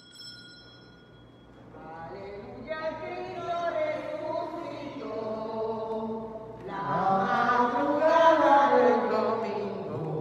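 Voices singing a hymn, the entrance hymn opening a Mass; the singing starts about two seconds in and grows louder from about seven seconds. A faint ringing tone fades away in the first second or two.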